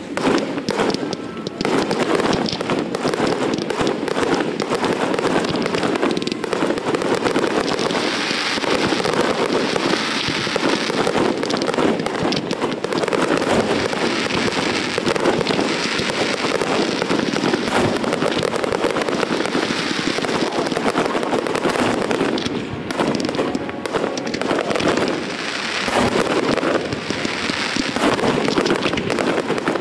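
Fireworks display: a dense, continuous barrage of aerial shells bursting and crackling, with a couple of brief lulls late on.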